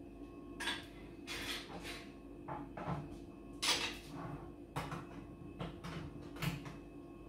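Scattered knocks and scrapes of a utensil against a tin can and a dish as canned sardines are picked over to remove the large bones, the loudest clatter about halfway through, over a steady low hum.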